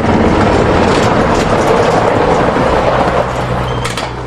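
Dirt bike engine running hard on the track: a loud, rough engine noise that eases off about three seconds in, leaving a steady low hum.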